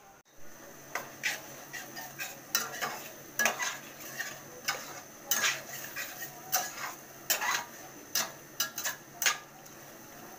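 A metal utensil stirring a curry gravy of onion and garlic in a steel pot, scraping and clinking against the pot roughly once or twice a second, with a low sizzle under it.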